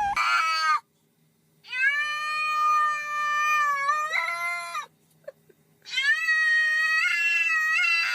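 A cat meowing in long, drawn-out yowls: one short call at the start, then two long held calls of about three seconds each with short silences between.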